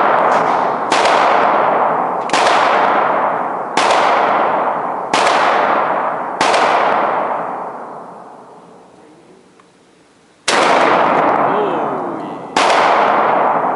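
TriStar 28-gauge semi-automatic shotgun firing seven loud shots, each with a long echoing decay. Five come in steady succession about a second and a half apart, then after a pause of about four seconds two more follow.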